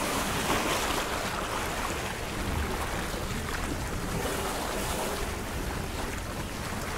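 Water rushing and splashing along the hull of a sailing yacht moving under sail, with wind buffeting the microphone. It is a steady noise with no engine running.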